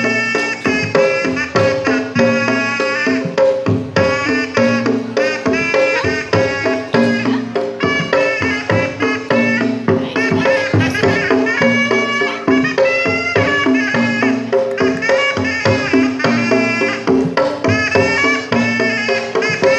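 Sundanese pencak silat accompaniment (kendang pencak) playing continuously. A reedy terompet melody wavers high over a quick, steady pattern of kendang drum strokes, with a sustained low gong-like tone beneath.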